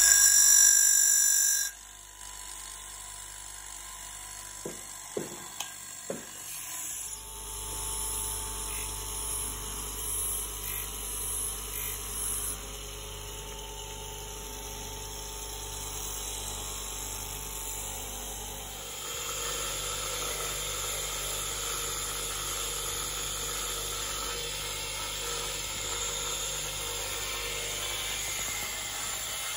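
Sharpening machine's abrasive wheel running with cuticle nippers held against it, grinding the edges where the blades meet: a loud hissing grind for the first couple of seconds. Then the wheel runs on more quietly, with a few small clicks, lighter contact that comes and goes, and a steadier, louder running noise from about two-thirds of the way through.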